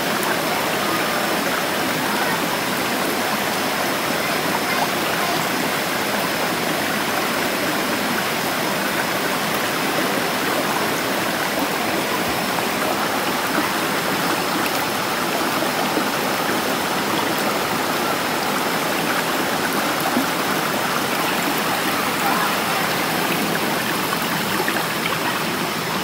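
Shallow stream flowing over rocks: a steady, even rush of water. A faint steady high tone sits above it.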